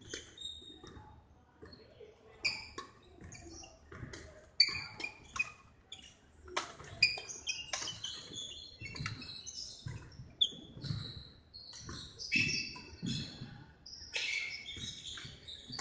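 Badminton rally on a wooden sports-hall floor: rubber-soled shoes squeaking in short high chirps, several sharp racket hits on the shuttlecock and thudding footsteps.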